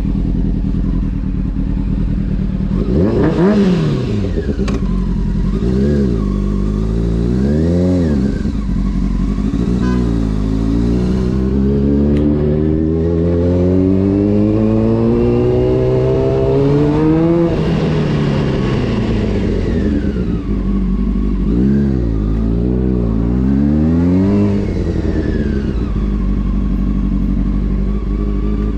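Honda CBR600 F4's inline-four engine running at low revs, revved up and down three times in quick blips, then climbing steadily in revs for about seven seconds before dropping off sharply. Three more quick revs follow before it settles back to low revs.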